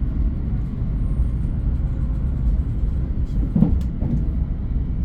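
Steady low rumble of a moving train, with a single short knock about three and a half seconds in.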